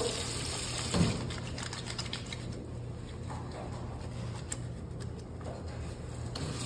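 Wet hands lathering soap: faint irregular squelching and rubbing, with a soft knock about a second in, over a steady low hum.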